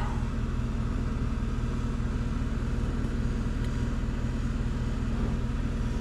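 A steady low hum and rumble with no distinct events.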